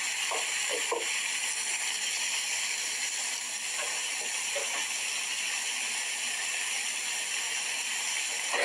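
Potato wedges and chopped onion frying in hot oil in a wok, a steady sizzle.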